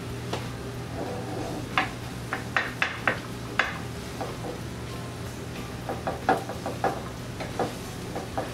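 A wooden spoon stirring crumbled plant-based meat in an enamelled pan, with sharp clacks and scrapes of the spoon against the pan in two bursts, over soft background music.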